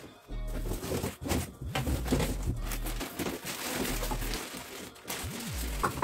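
Cardboard and plastic packaging rustling and crinkling as a gaming chair and its parts are unpacked, with irregular handling clicks. A music track's bass line runs underneath.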